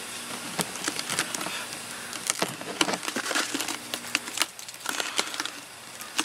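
A painted canister with its lid on being picked up and turned in the hands: irregular clicks, taps and scrapes.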